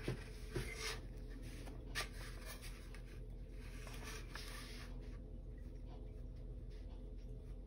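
Faint scratchy strokes of a small paintbrush working acrylic paint on a wood panel, with a few soft taps in the first couple of seconds as the panel is handled.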